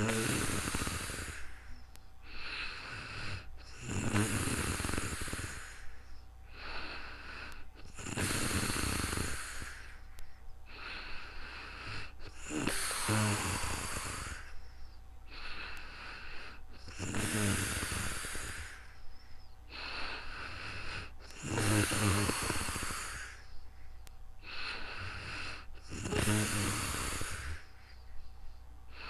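A person snoring in their sleep: a rattling snore about every four to five seconds, seven in all, each followed by a softer breath.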